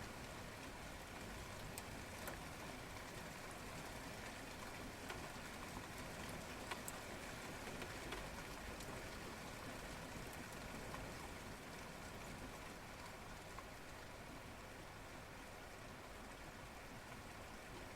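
Steady rain falling, an even hiss with occasional single drops ticking close by.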